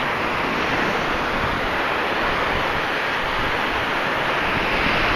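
Ocean surf washing up the beach: a steady rushing that swells slightly toward the end.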